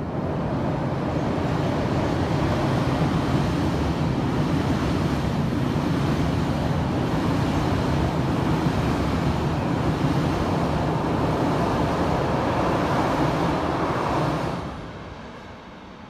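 Train crossing a steel truss railway bridge, heard from beneath: a loud, steady rumble that fades down near the end.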